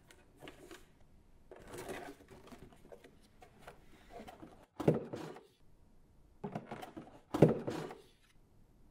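Cardboard toy box with a clear plastic window being handled and opened: rustling and scraping of cardboard and plastic packaging in several short bursts, the two loudest about five and seven and a half seconds in.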